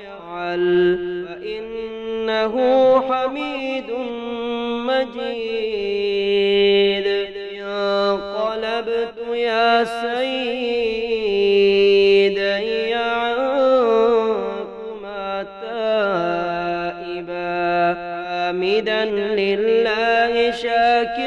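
A single voice chanting an Arabic supplication in a slow, melodic recitation, drawing each phrase out into long held notes with wavering turns.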